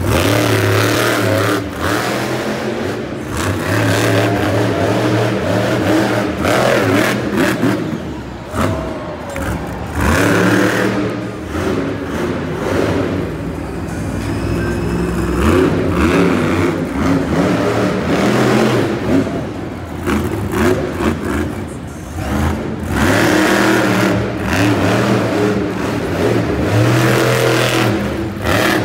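Monster truck's supercharged V8 engine revving hard and falling back again and again as the truck drives and jumps on the dirt track, heard loud from the arena stands.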